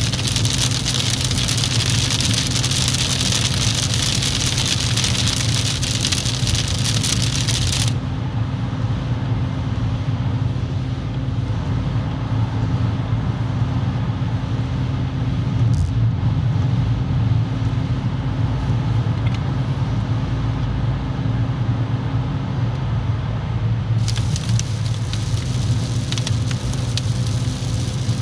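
Steady low drone of a car's engine and road noise heard from inside the cabin, with a loud hiss of wet tyres and rain on the motorway. The hiss drops away sharply about eight seconds in as the car enters a tunnel's dry roadway, and comes back a few seconds before the end as it leaves the tunnel into the rain.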